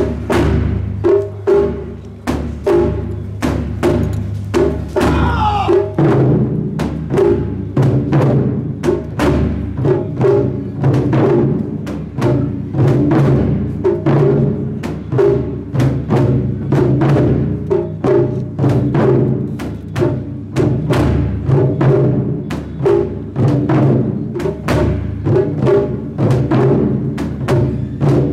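Ensemble taiko drumming: a row of nagado-daiko barrel drums beaten together with wooden bachi sticks in a fast, driving unison rhythm, dense, loud and continuous, with the deep drum pattern shifting about six seconds in.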